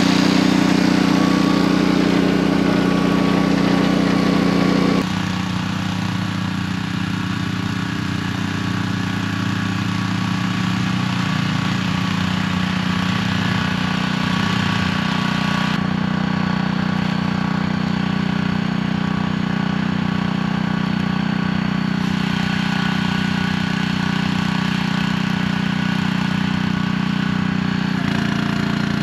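Small gas engine of a Split-Fire 2265 log splitter running steadily while it splits hickory. Its hum shifts abruptly in tone and level several times.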